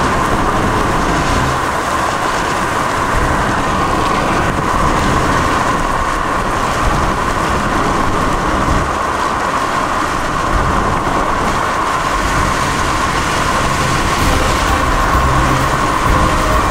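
Steady road and wind noise of a vehicle driving.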